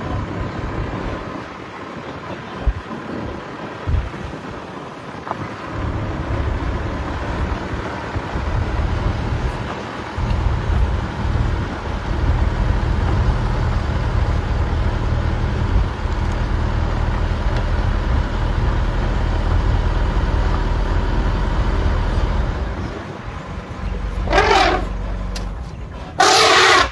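A vehicle engine running with a steady low drone, then an agitated African elephant trumpets twice near the end, the second blast the louder.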